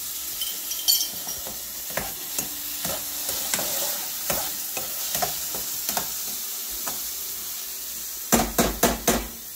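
Onions, peppers and olives sizzling in oil in a caldero while a metal spoon stirs and scrapes them around the pot. Near the end come four or five quick, sharp knocks, the loudest sounds here.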